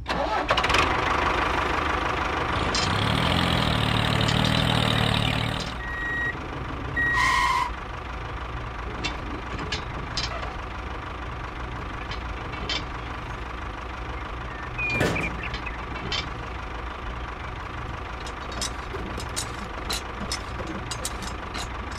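Tractor engine idling steadily, louder for about the first six seconds and then quieter, with small clicks and taps scattered through the second half as the plastic implement is hooked onto the hitch.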